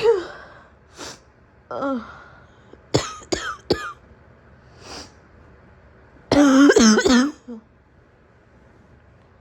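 A woman coughing: three quick sharp coughs about three seconds in, then a louder, throaty coughing fit of several coughs a few seconds later, with breaths between.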